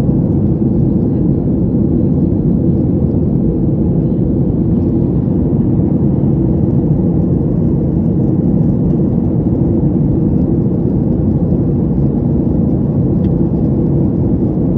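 Steady roar of jet engines and airflow heard inside the cabin of a flydubai Boeing 737 in flight, a deep even rumble with no change in level.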